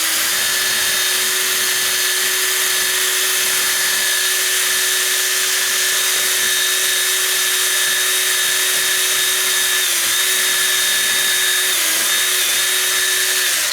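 Electric drill spinning a 1/8-inch bit whose threads are reaming out the wood of the door jamb behind a strike plate. A steady whine that sags briefly twice in its last few seconds as the bit bites, then stops.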